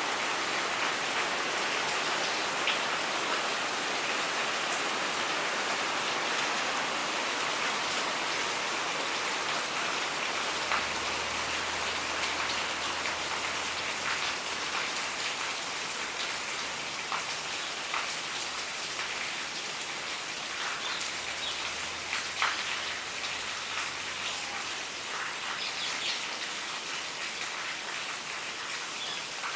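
Steady rain falling, an even hiss with scattered louder drips. A faint low hum comes in twice.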